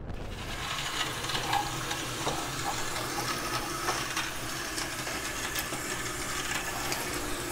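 Water running from a newly plumbed darkroom tap, a steady hiss with a few small ticks and splashes. It comes on right at the start, a sign that the new water line is flowing.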